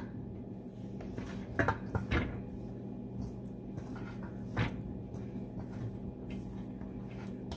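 Chicken wings being tossed by hand in flour in a stainless steel bowl: soft dull knocks and rustling, with a few sharper knocks about one and a half, two and four and a half seconds in, over a steady low hum.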